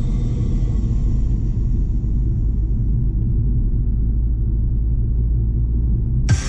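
Electronic dance music in a muffled, bass-only passage: the treble is filtered away until only a low rumble is left. About six seconds in, the full track cuts back in suddenly.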